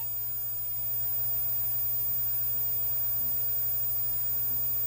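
Steady low electrical hum with an even hiss from a VHS tape playing through a television, with no programme sound on the tape.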